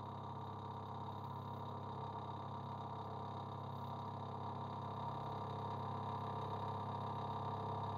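TRAK DPM RX2 bed mill running steadily, its spindle turning an end mill through a milling pass in a metal part held in a vise: a steady hum with several fixed tones.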